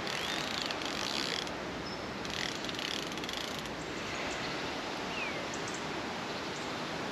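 Penn Affinity 7000 fixed-spool fishing reel being cranked, its gears whirring and clicking in two short spells, winding in slack line after a cast.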